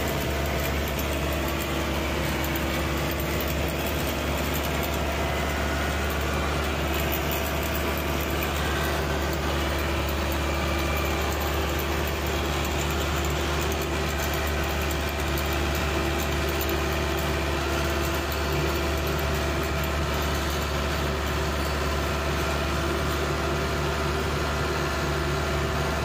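Bus engine running steadily under way, heard inside the cab: a constant low hum with road noise, unchanged in level throughout.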